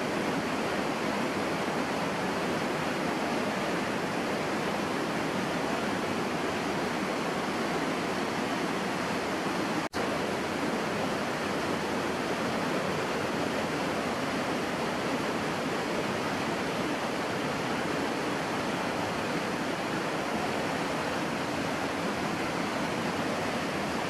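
Steady rush of water from a rocky stream tumbling over boulders, broken by a split-second gap about ten seconds in.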